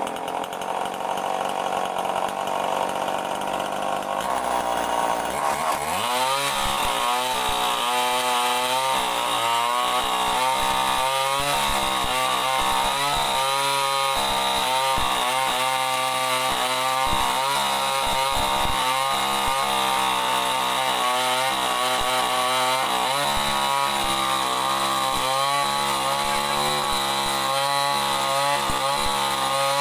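Two-stroke gasoline chainsaw ripping lengthwise through a thick mahogany plank. The engine runs under steady load, its pitch dipping about six seconds in and then wavering up and down as the chain bites into the wood.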